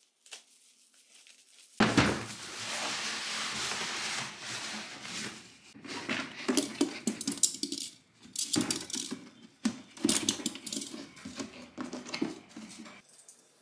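Plastic wrapping and cardboard rustling from about two seconds in, then hard white plastic storage boxes knocking and scraping against each other in repeated bursts as the tightly nested boxes are pulled apart.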